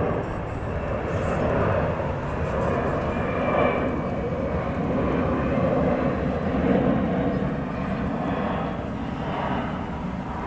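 Boeing 747 jetliner passing overhead, its four jet engines making a steady rumbling jet noise with slow swells that eases a little near the end.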